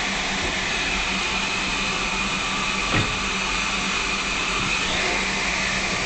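Steady hiss with a low hum from a steam train standing at the platform, with a single click about halfway through.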